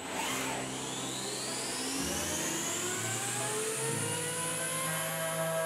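The spindle of a Knuth X.mill T700 CNC vertical machining centre spinning up: a whine that rises steadily in pitch. Under it are lower steady machine hums that change in steps about two and four seconds in.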